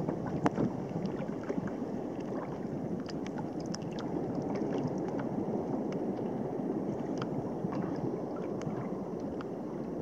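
Small sea waves lapping and gurgling against a kayak's hull in a steady wash, with scattered light ticks and splashes.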